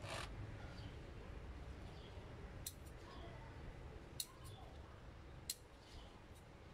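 Scissors snipping shoots and leaves off chili plants: a few faint, sharp snips a second or so apart, with a brief rustle of the foliage at the start.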